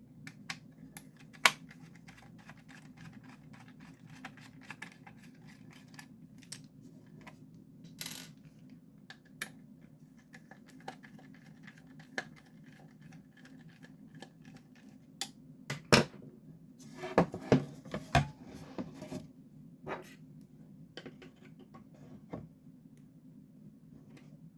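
Scattered clicks, taps and light clatter of screws, a screwdriver and plastic parts being handled while a Logitech Z623 speaker casing is taken apart, with a louder run of knocks about two-thirds of the way through. A steady low hum runs underneath.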